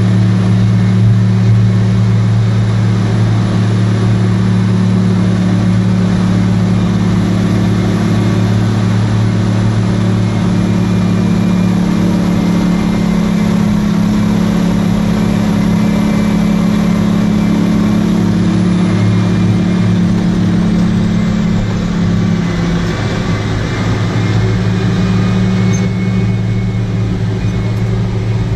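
Heavy mining machinery running steadily with a loud, deep, even drone; the note drops briefly about 22 seconds in, then settles again.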